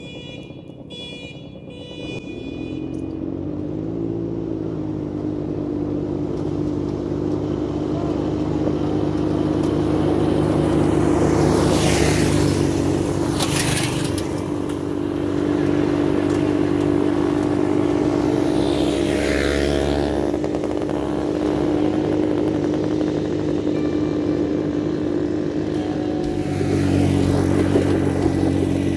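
Small single-cylinder minibike, go-kart and dirt-bike engines running flat out in a drag race, their drone growing louder over the first few seconds and then holding at a steady pitch. Tyres crunch and scatter loose gravel.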